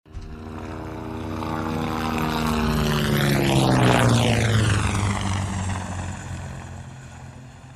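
Helicopter flyover sound effect run through a Doppler shift: the rotor and engine sound grows louder, is loudest about four seconds in as it passes overhead, then fades away with its pitch dropping.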